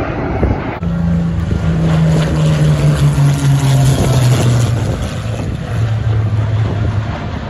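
Aircraft engine flying past, its pitch falling slowly over several seconds as it goes by, with wind noise on the microphone.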